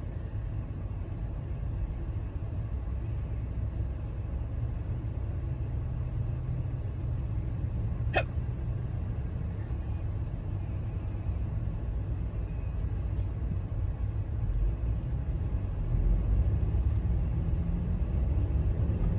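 A person hiccuping once, a short sharp hiccup about eight seconds in, over a steady low rumble.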